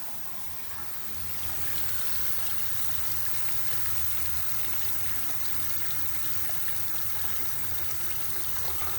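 Running water, a steady stream that gets louder about a second in and then keeps flowing evenly.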